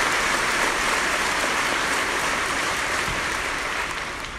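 Large audience applauding, the clapping slowly fading toward the end.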